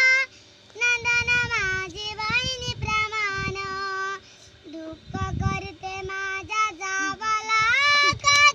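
A young girl singing solo, holding high notes with sliding, ornamented turns, in phrases with short breaks between them. Low rumbling noise sounds underneath at times.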